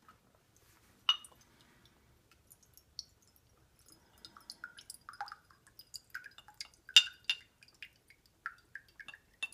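White vinegar poured from a bottle into a small glass, with irregular trickling and splashing through the second half, and sharp glass clinks and taps, the loudest about seven seconds in.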